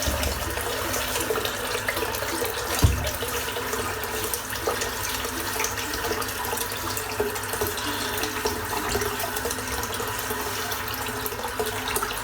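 Tap water running steadily into a bathroom sink, with a single knock about three seconds in.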